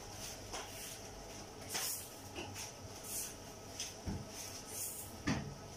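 Batter fritters frying in a pan of oil with a steady sizzle. A few short knocks and clatters come through it, the loudest near the end.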